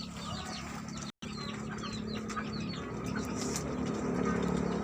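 Many small birds chirping: quick, repeated short falling chirps over a steady low hum. The sound cuts out for an instant about a second in.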